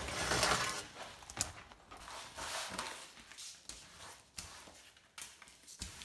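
Thin plastic fridge-shelf liner sheets being handled: a burst of rustling at the start, then scattered light rustles, taps and clicks.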